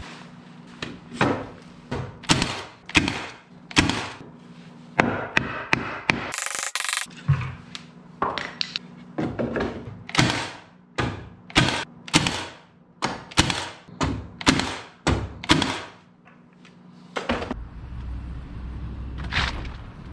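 Milwaukee cordless nail gun firing nails into weathered wood panels on a workbench: a long series of sharp shots, often in quick runs of two or three, which stop about three seconds before the end.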